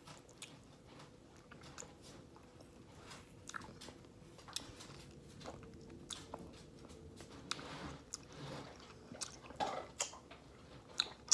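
A person eating ice cream close to the microphone: faint wet mouth and lip smacks with scattered small clicks.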